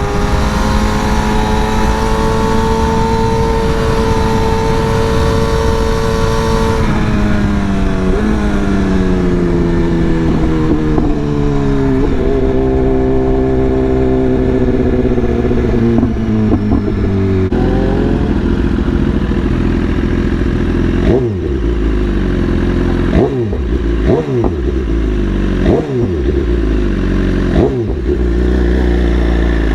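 BMW S1000RR inline-four sportbike engine cruising at a steady high note, then slowing, its pitch falling in steps through the gears down to a low steady run. Several quick throttle blips follow, and near the end the revs rise as it accelerates again.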